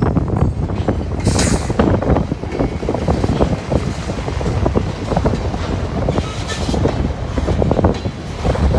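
CSX freight train rolling past at close range: the locomotive, a platform caboose and covered hopper cars, with steel wheels clattering and knocking over the rails throughout. Heavy wind buffets the microphone.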